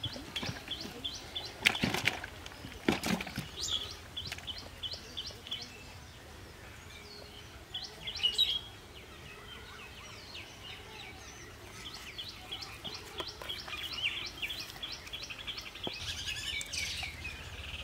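Small birds chirping over and over in short, quick high calls, with two louder sudden noises about two and three seconds in.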